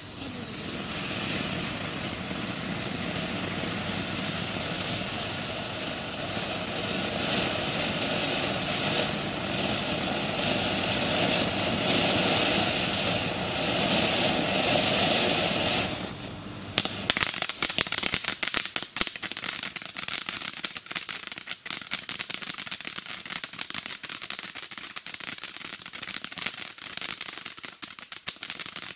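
Miracle Fireworks Emoji ground fountain firework burning, spraying sparks with a steady loud hiss that builds slightly. About sixteen seconds in it changes abruptly to a dense, rapid crackling.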